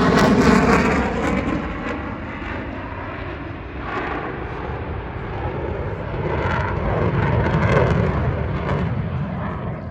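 Aircraft engine sound from a display flypast: loud at first with its pitch falling as it passes, easing off, then swelling again around eight seconds in and fading.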